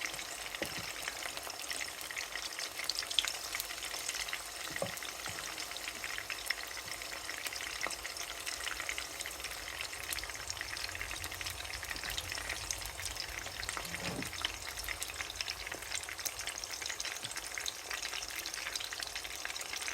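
Chicken frying in hot oil in a pan, sizzling steadily with constant crackle, and a few scrapes or knocks as it is stirred.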